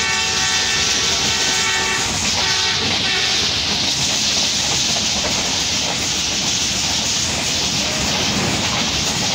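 A diesel locomotive's multi-tone horn sounds from the head of the train: a long blast ending about two seconds in, then two short blasts. After that comes the steady rush of the express running fast, with wheel and rail noise and wind through the open coach window.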